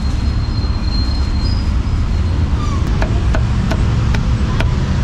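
Heavy cleaver chopping roast meat on a thick round wooden chopping board: a run of sharp chops, about two or three a second, starting about three seconds in. A steady low rumble of street traffic sits underneath.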